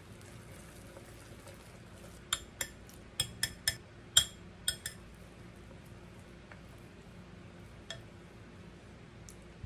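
Metal wire whisk striking the rim of a glass mixing bowl, about eight sharp ringing clinks in under three seconds, knocking thick chocolate batter off the whisk. A single faint tap against the bowl near the end.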